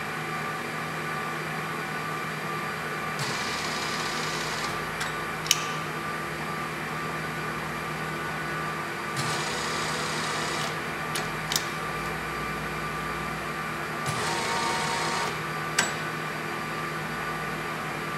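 Rapid traverse of a Colchester 18-inch variable speed lathe: over a steady machine hum, the power feed runs in three short spells of a higher-pitched whir, each about a second long, as the carriage and cross-slide are driven along the X and Z axes. A few sharp clicks come in between, from the feed joystick being worked.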